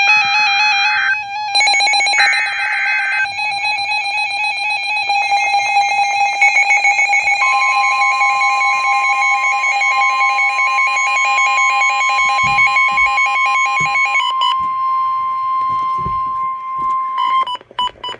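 Emergency Alert System header: a couple of buzzing bursts of SAME digital data over a warbling electronic tone. About seven seconds in, the steady 1050 Hz NOAA Weather Radio warning alert tone begins and holds for about ten seconds before cutting off near the end.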